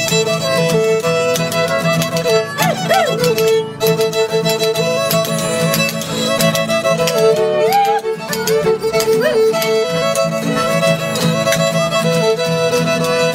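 Fiddle playing a lively tune live, its bowed notes held and sliding between pitches, over acoustic guitar accompaniment.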